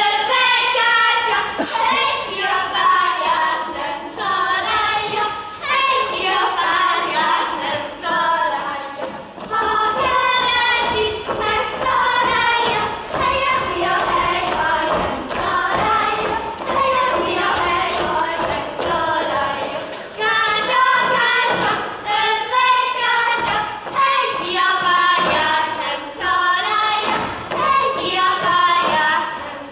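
A group of children singing a folk song together, with dancers' feet stamping and thudding on the stage floor throughout.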